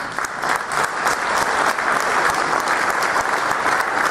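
Audience applauding, many hands clapping. It grows louder over the first second, then holds steady.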